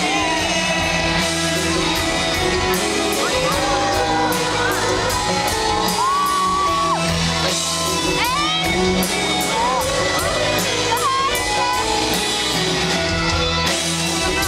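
Live rock band playing loud with a steady drum beat, heard from within the audience, with people nearby shouting and whooping over the music.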